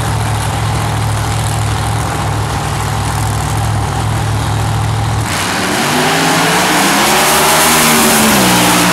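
A drag car's engine runs loud and steady at the starting line, then the car launches about five seconds in with a sudden blast of noise. The engine pitch climbs and drops once near the end at a gear change.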